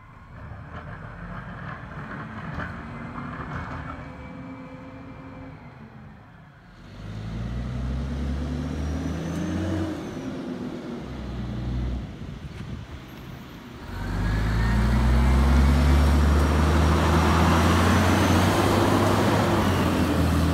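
Diesel engine of a 2002 Freightliner FL112 rear-loader garbage truck with a McNeilus body pulling away and driving past close by, its pitch rising and falling through the gears and loudest over the last several seconds. Before this, for the first several seconds, a CNG garbage truck idles more quietly in the background.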